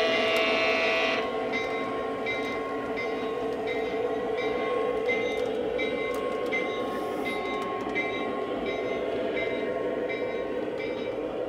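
Lionel O-gauge model train running on three-rail track. A horn sounds and cuts off about a second in, then a steady running rumble with the locomotive's engine sound continues as the train moves away.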